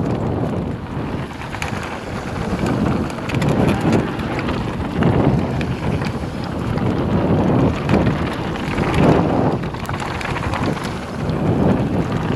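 Wind buffeting the microphone and tyres rumbling over a dirt trail as a Scott e-mountain bike rides fast downhill, with small rattles and knocks from the bike over rough ground. The rush swells and fades with speed.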